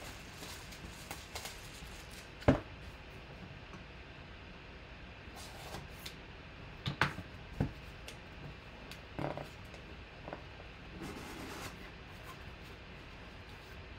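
A sealed cardboard box being unwrapped and cut open by hand: plastic wrap crinkling, a knife slitting the box and the flaps folding back. Scattered sharp knocks and taps of box and blade are heard, the loudest about two and a half seconds in.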